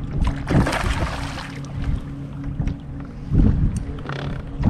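Wind buffeting the microphone and choppy waves splashing against a kayak hull, in gusts, with a steady low hum underneath.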